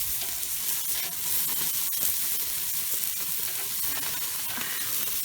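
Beef kofta kebabs sizzling as they fry in oil, a steady hiss with a faint click about two seconds in.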